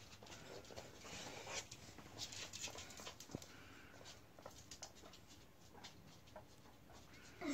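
Faint, irregular pattering clicks of a guinea pig's claws on a wooden floor as it walks and sniffs about.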